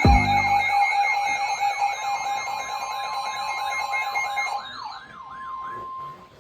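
Electronic siren in a fast yelp, its pitch sweeping up and down about three times a second over steady alarm tones, after a low thump at the start. The steady tones cut off near the end, the yelp fades, and a single steady tone holds on briefly.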